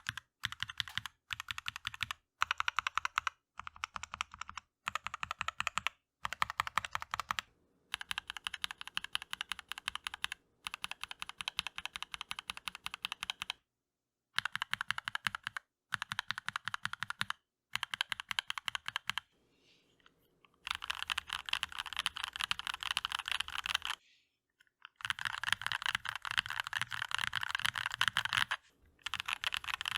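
Fast typing on a Keychron V1 mechanical keyboard, a dense run of key clacks in several stretches that stop abruptly for a moment between them.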